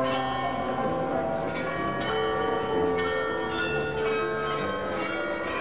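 Bells of the Munich New Town Hall Glockenspiel playing a melody. Notes of different pitches are struck one after another, and each rings on and overlaps the next.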